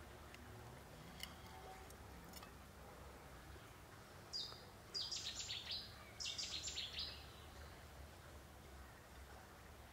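A small bird singing two short phrases of quick, high chirping notes, about four and six seconds in, over a faint low outdoor background.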